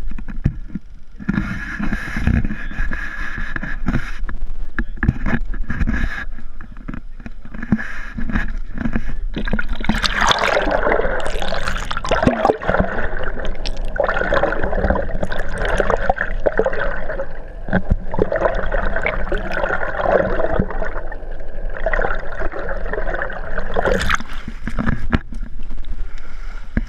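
Water rushing and gurgling over a camera dunked beside a moving boat's hull, becoming a loud, dense rush of bubbles from about ten seconds in and easing near the end as it comes back to the surface.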